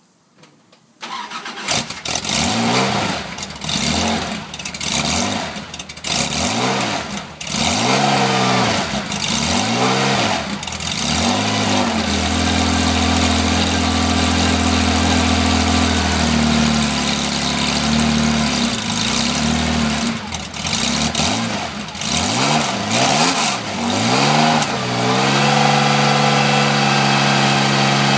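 A 1974 Porsche 911's air-cooled flat-six, breathing through a stock 1974 exhaust with custom 2.5-inch dual tailpipes, starts up about a second in and is blipped over and over. It is held at raised revs for a few seconds, revved a few more times, and settles to a steady idle near the end.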